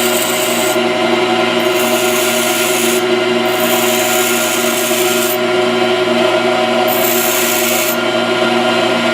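Pedestal grinder running steadily while a high-speed steel lathe tool bit is pressed against the wheel, with a gritty grinding hiss coming and going over several passes of a second or two each.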